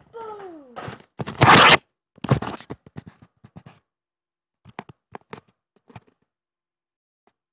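A short falling vocal cry, then a loud rustling scrape and a string of scattered knocks and clicks that thin out, from handling close to the microphone.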